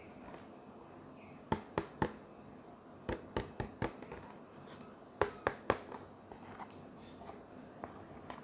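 Clear plastic face shield with a plastic hat brim being handled, giving sharp plastic taps and clicks in three short runs of three to five, with fainter ticks between.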